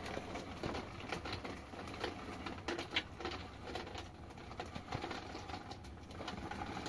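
Plastic bag crinkling and rustling as it is handled, with small clicks and knocks of things being moved; a sharper click about three seconds in is the loudest moment.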